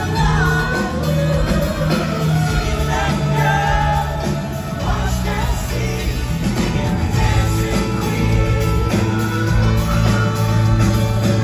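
Live pop-rock band playing through the PA: lead vocals over acoustic and electric guitars, keyboard and drums, with a steady driving beat.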